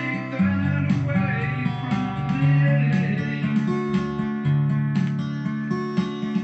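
Guitar music: strummed guitar over held low notes that change every second or two.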